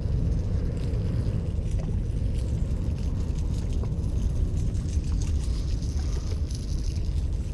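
Wind buffeting the microphone of a wearable point-of-view camera: a steady, uneven low rumble with a few faint clicks.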